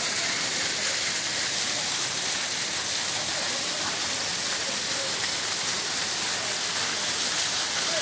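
Waterfall pouring down a rock face and splashing onto the rocks below: a steady, even rush of falling water.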